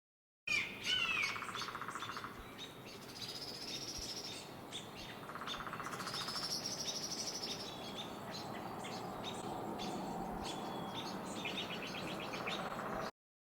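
Small birds chirping and singing: many short chirps, a trill heard twice, and high drawn-out whistles.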